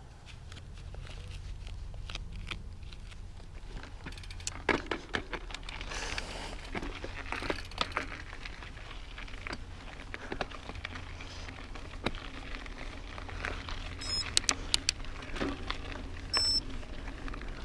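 Mountain bike riding over a rocky trail: tyres crunching over rock and gravel, with repeated sharp clacks and rattles from the bike over a steady low rumble, and a brief high squeak near the end.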